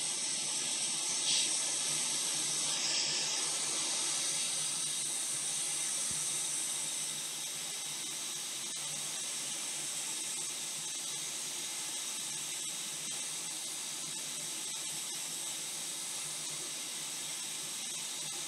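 Hot air rework station blowing a steady airflow hiss onto the logic board, heating a shorted capacitor on the main power rail to desolder it. The hiss drops slightly in level about a third of the way through.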